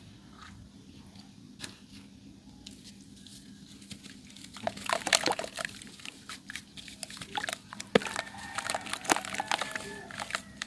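Dry yellow sand clay crumbling and crunching in scattered crackling bursts, sparse for the first few seconds and then denser.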